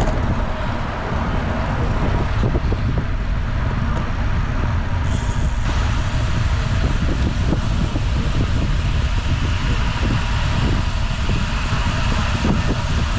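Wind noise on the microphone of a camera riding on a road bicycle at speed: a steady, deep rumble.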